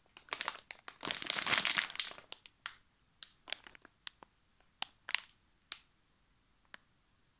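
Crinkling of a large clear plastic bag of jelly sweets being handled: a dense rustle for the first two seconds or so, then scattered crackles that grow sparser.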